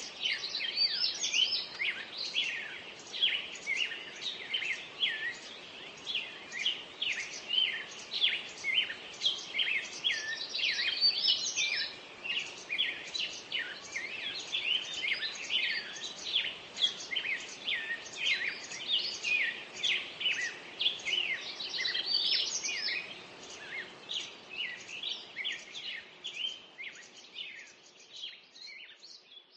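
Dawn chorus of songbirds: many quick, overlapping chirps and trills from several birds singing at once over a faint background hiss, fading out near the end.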